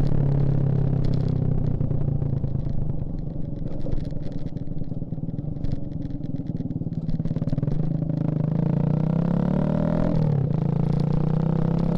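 Suzuki Shogun Axelo R's single-cylinder four-stroke engine running under way, with a rough, clattery note for several seconds. It then rises in pitch, drops sharply about ten seconds in, and climbs again.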